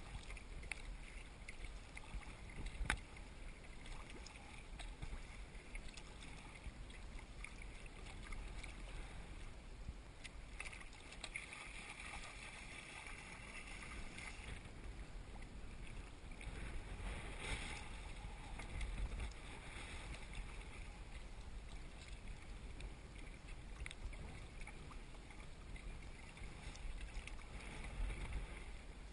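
Kayak paddle strokes splashing and water washing against the kayak hull, a steady faint wash with a low rumble underneath and one sharp knock about three seconds in.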